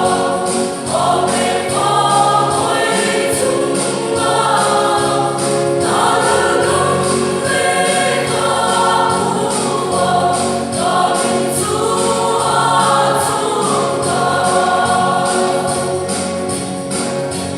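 A choir singing a gospel song over music, with a steady bass line and an even percussion beat.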